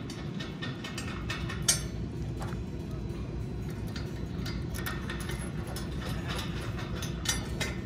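Light metallic clicks and clinks of washers and lock nuts being fitted by hand onto bolts under a galvanized steel base plate, with one sharper knock about two seconds in. Under them runs a steady low rumble.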